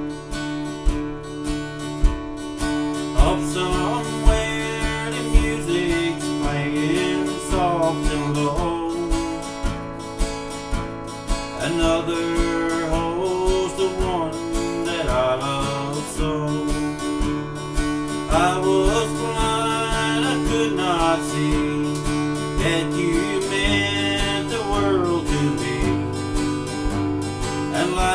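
Acoustic guitar strummed through a slow country song's instrumental introduction, with a higher melody line sliding up and down over the held chords.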